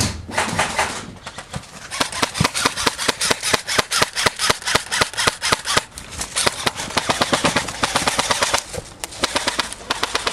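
Airsoft guns firing in long rapid strings of sharp snapping shots, with short pauses between strings.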